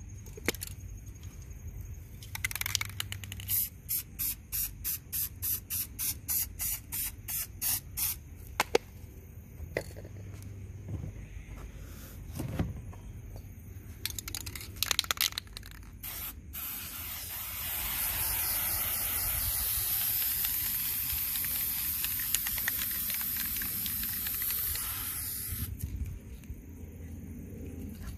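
Aerosol spray-paint can spraying: a run of short quick bursts, about two a second, then a few more, then one long steady spray lasting about nine seconds that cuts off sharply.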